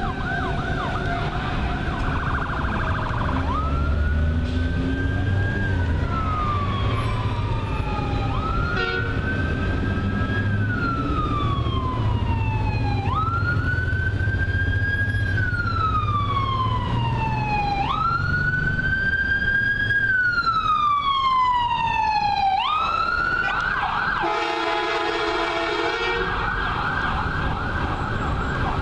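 Fire rescue vehicle's siren: a short fast yelp, then a slow wail that climbs quickly and sinks slowly about every four to five seconds, switching back to a fast yelp near the end. About two seconds of air horn blare over it near the end, with a low engine rumble underneath.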